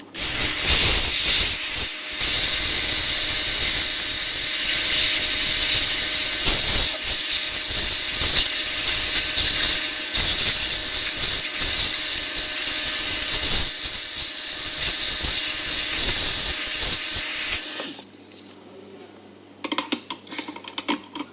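Hot air rework gun blowing, a loud steady hiss, while desoldering a component that tested open from the circuit board; it cuts off about eighteen seconds in, followed by a few small clicks.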